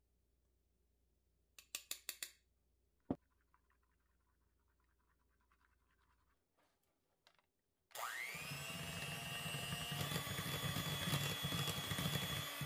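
A mesh sieve tapped a few quick times over a glass bowl while sifting powdered sugar. About eight seconds in, an electric hand mixer starts with a rising whine and runs, its beaters whipping cream cheese and butter; it shifts up to a higher speed partway through, then cuts off.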